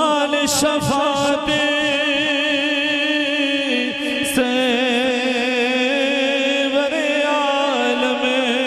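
A man singing a Punjabi devotional naat into a microphone, drawing out long held notes with heavy vibrato and only a few breaks for breath.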